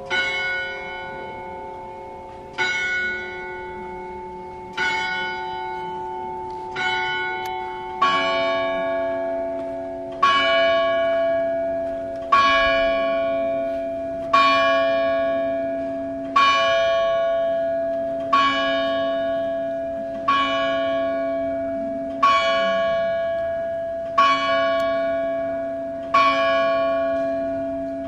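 Bells of the Loreta tower carillon in Prague, struck one at a time about every two seconds, each stroke left to ring out and fade. About eight seconds in, the notes change, and from then on the same bell repeats at one pitch.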